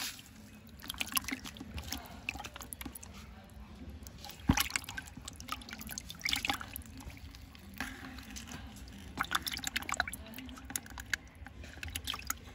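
Live fish (climbing perch and snakehead) splashing and flapping in a plastic bucket of water, in irregular bursts, with one sharp knock about four and a half seconds in.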